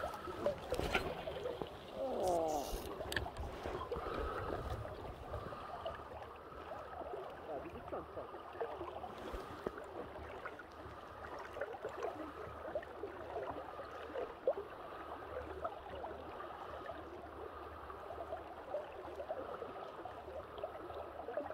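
River water gurgling and lapping against the hull of a drifting boat, with a few sharp clicks and knocks in the first few seconds.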